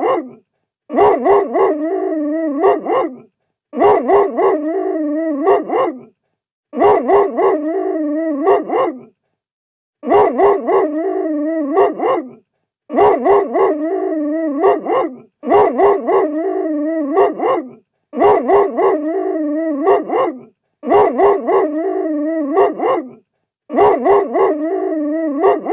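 Big dog barking angrily. Each burst is a few sharp barks running into a longer, held, wavering bark. The same burst repeats about every three seconds, with short silences between, about nine times.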